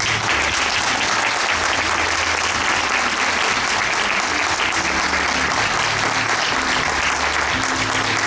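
Audience applauding steadily, with music playing low underneath.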